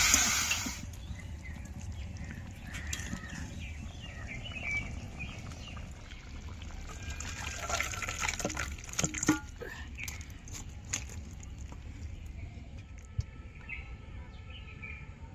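Chicken pieces sizzling in hot oil in a wok, cut off within the first second. Then thick chicken curry is poured from the wok into a steel bowl: liquid splashing and dribbling, with scattered clinks and knocks of metal, thickest in the middle of the stretch.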